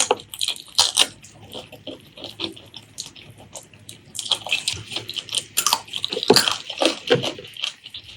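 Close-miked wet eating sounds: irregular chewing, lip-smacking and squelching of saucy pork curry and rice, with louder clusters of smacks in the second half.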